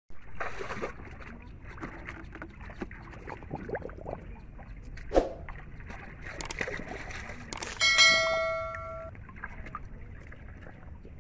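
Catfish thrashing in shallow muddy water, irregular splashes and wet slaps. About eight seconds in, a loud bell-like chime rings for about a second and fades.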